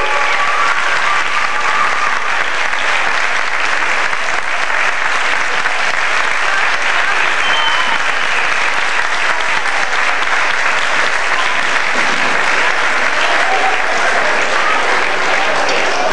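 A large audience clapping steadily in a school hall.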